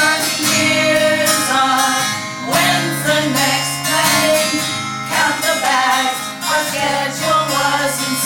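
Music: a song accompanied on strummed acoustic guitar, in a passage with no lyrics sung.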